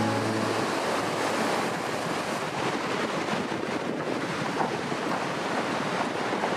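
Fast-flowing Hunza River rushing steadily below a narrow bridge, an even wash of water noise, possibly mixed with wind on the microphone.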